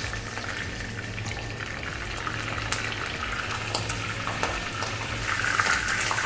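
Chicken breast sizzling in hot seed oil in a frying pan, with scattered pops and crackles as the very moist meat gives off liquid. The sizzle grows louder near the end.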